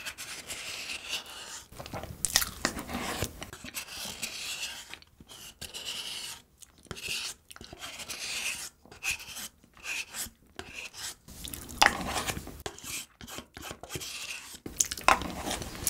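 Close-miked eating of soft cream-topped cupcake: wet chewing and lip-smacking in short irregular bursts, with a few sharp clicks and a wooden spoon scraping in the paper cup.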